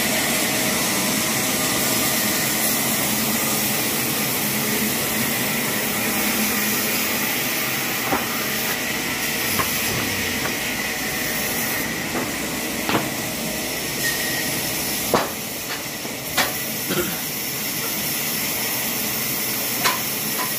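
Steady hissing noise, strongest in the high range, with a handful of short sharp clicks scattered through it.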